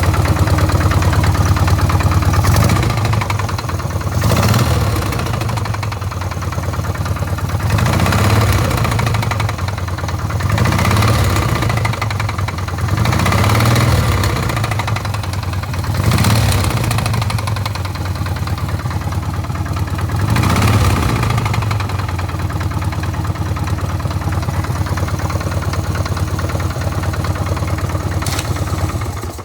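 1998 Harley-Davidson Sportster XL1200S air-cooled V-twin idling with a knock from the front cylinder, revved briefly and let back down about six times. The owner wonders whether the knock is lifter noise. He says it goes away at higher rpm and that the front cylinder also has an exhaust leak.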